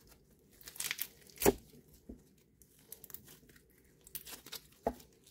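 Overactivated semi-foam slime with beads being squeezed and pulled apart by hand, giving irregular pops and crackles, the loudest about a second and a half in and a quieter stretch in the middle. Being overactivated, it tears apart instead of stretching smoothly.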